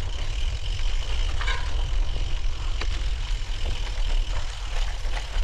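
Wind buffeting the microphone as a choppy low rumble, with a thin, steady high-pitched tone and a few brief scratchy rustles.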